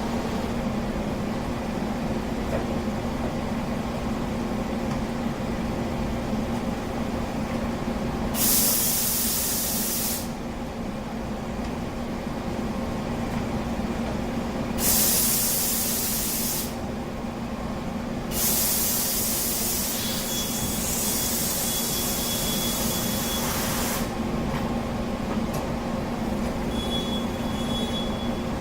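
Olympia CNC boring mill running with a steady low hum, broken by loud bursts of hissing: one about eight seconds in, another around fifteen seconds, and a longer one of about five seconds starting near eighteen seconds.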